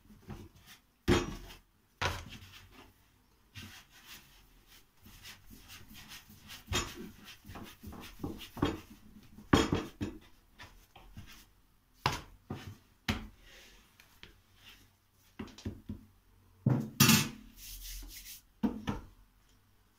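Hands patting and pressing balls of pastry dough flat on a floured wooden board: irregular knocks and slaps every second or few, with soft rubbing between them.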